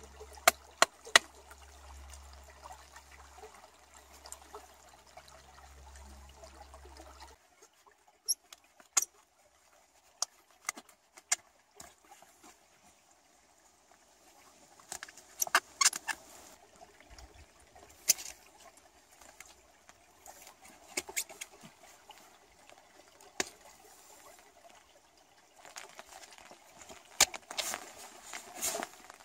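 Knife work on wood and birch bark: sharp clicks and short scraping strokes in irregular clusters. For the first seven seconds or so a stream runs steadily underneath, then it drops away.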